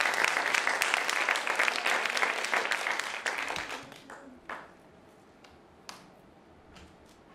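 Theatre audience applauding, the clapping dying away about four seconds in. A few isolated light knocks follow on the quiet stage.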